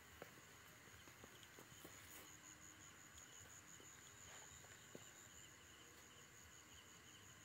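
Faint, steady trilling of night insects: a high pulsing song with a second, lower pulsing one, and a few faint clicks.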